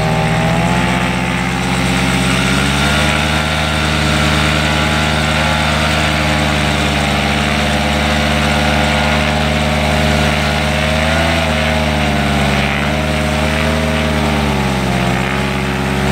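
Air Conception Nitro 200 paramotor's two-stroke engine and propeller running at low-to-mid throttle, revving up a little a few seconds in, then holding steady. Near the end it eases off briefly and picks up again.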